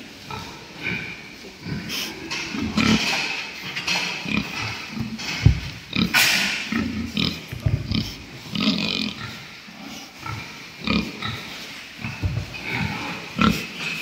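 A pen of pigs grunting irregularly, with a louder, sharper burst about six seconds in.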